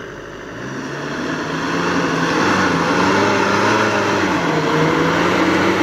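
Force Gurkha 4x4's diesel engine running as it drives down a sandy trail toward the microphone, growing louder over the first two seconds and then holding steady, its pitch wavering gently up and down.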